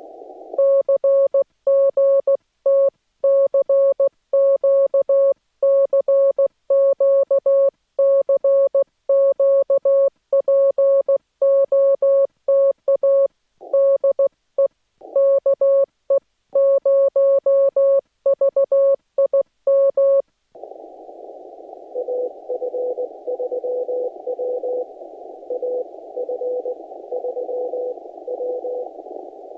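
Morse code on a ham radio transceiver: the radio's sidetone, a clean beep keyed on and off with silent gaps, as the operator sends. After about twenty seconds the sending stops and the receiver's hiss comes up, with a weaker station's Morse beeping faintly in it.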